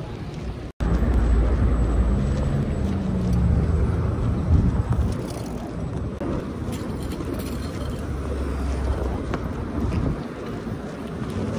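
Road traffic on a busy city street: cars passing with a steady low rumble. The sound cuts out for an instant less than a second in, then comes back louder.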